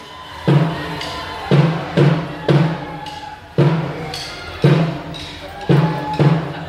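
A children's marching drum band beating a marching cadence: bass drum and snare strokes about once a second, some coming in quick pairs.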